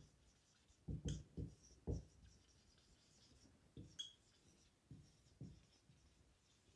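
Faint dry-erase marker writing on a whiteboard: short scratchy strokes with light squeaks, a quick cluster of them about a second in, then a few more spaced out.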